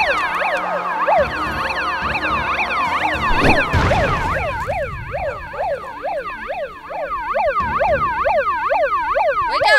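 Handheld megaphone siren sounding a fast up-and-down electronic wail, several sweeps overlapping, held throughout. A dull thud cuts through about three and a half seconds in.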